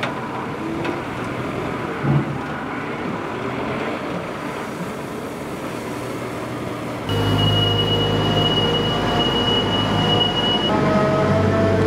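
Loader engine running with a steady rushing noise as its bucket works a sawdust pile. About seven seconds in, the sound cuts to a louder telehandler engine with a steady low hum and a high, steady whine; the whine stops near the end.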